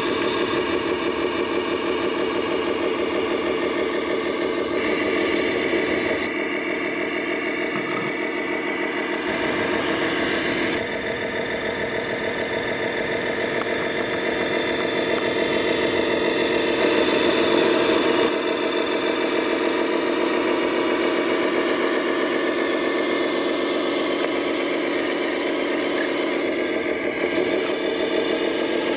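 Radio-controlled Volvo FMX 8x8 dump truck model running with a continuous engine-like drone as it drives through sand. The drone shifts in pitch and level a few times, about 5, 11 and 18 seconds in.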